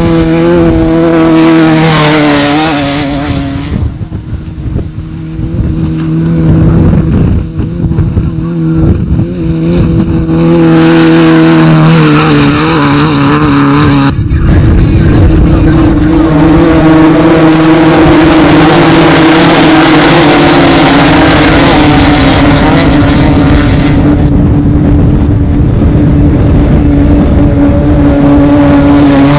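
Off-road desert race vehicle engines running hard. Their pitch holds steady for stretches, then rises and falls, and the sound changes abruptly several times.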